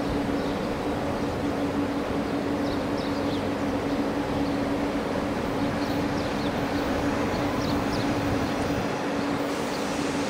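Train running steadily: an even rushing noise with a steady low hum throughout, and a few faint, short high chirps.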